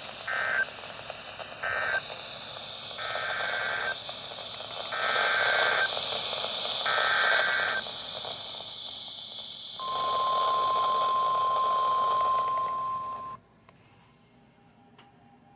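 NOAA Weather Radio emergency alert signalling over a hissy receiver. Two short SAME data bursts end the previous message, then three longer bursts of about a second each carry the header for the next warning. The 1050 Hz warning alarm tone follows, holds steady for about three and a half seconds, then cuts off suddenly, leaving faint hiss.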